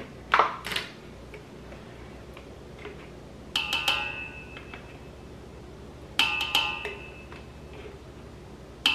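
A metal spoon knocked against the rim of a large stainless steel mixing bowl to shake off minced garlic: three bouts of quick taps about two and a half seconds apart, each leaving a bright ringing tone that fades. A sharp clack comes just after the start.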